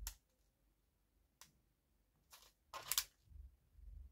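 Faint handling of small plastic packets of beads: a few short sharp clicks spaced out over the seconds, the loudest a quick cluster about three seconds in, then a soft rustle.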